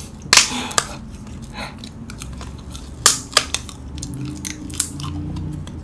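Thin edible wafer paper being bitten and chewed close to the microphone, with scattered sharp crackles.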